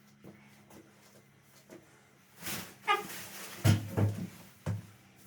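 A few sharp knocks and thumps with a brief squeak, like a cupboard or drawer being opened and things being handled, after a couple of quiet seconds.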